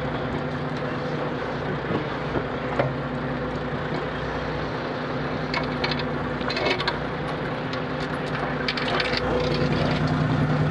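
Small fishing boat's engine running steadily under wind and sea noise, with scattered light clicks and knocks as crabs and net are handled on deck.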